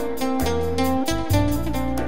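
Live Balkan Romani band playing an instrumental passage: a quick melody of short, stepping notes over bass notes, with electric guitar, keyboards and a fast, even beat on drum kit and hand percussion.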